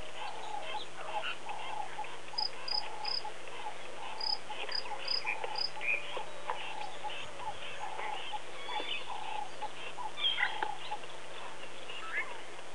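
Wild birds calling: a short lower note repeated over and over, scattered chirps, and two runs of high clipped pips, three and then four, from about two and a half to six seconds in. A faint steady hum runs underneath.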